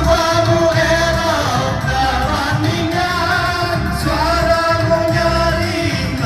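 Malay (Melayu) song performed with a singer's voice holding long, wavering melodic notes over a steady band accompaniment.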